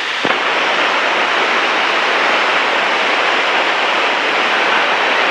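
Steady hiss of aircraft VHF radio static in the headset audio, starting with a click about a quarter-second in, in the gap between repeats of the automated weather broadcast.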